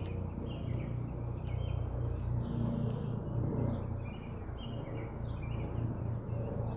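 Outdoor ambience: small birds chirping in short, repeated calls over a steady low rumble.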